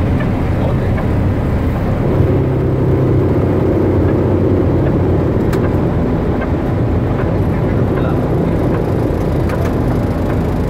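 Steady loud rumble of jet engines and rushing air heard inside an airliner's cockpit during takeoff and climb.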